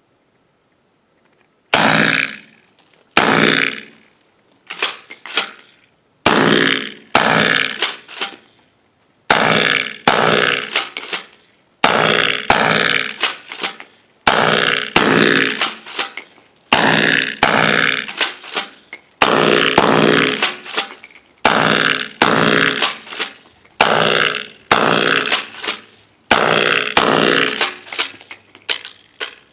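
DP12 double-barrel pump-action 12-gauge shotgun firing Aguila 1¾-inch minishell buckshot: about twenty loud blasts in quick clusters with short pauses between, each echoing and dying away. The short shells are feeding and firing without a failure.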